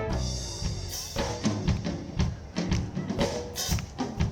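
Live band music led by a drum kit. A held band sound dies away in the first second, and separate bass drum and snare hits follow.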